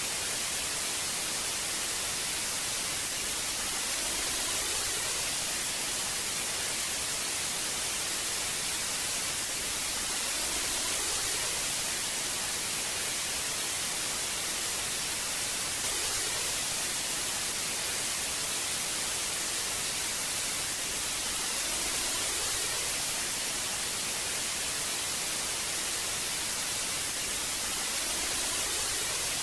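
Old analog television static: a steady hiss, strongest in the treble, swelling slightly about every six seconds.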